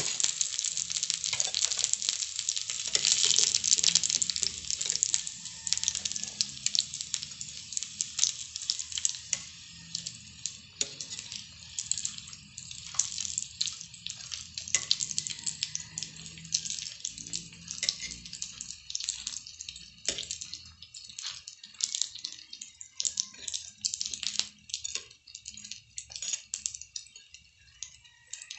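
Chicken nuggets shallow-frying in hot oil in a pan, sizzling and crackling, with a metal spatula scraping and clicking against the pan as they are turned. The sizzle is loudest at the start and dies down over the following seconds.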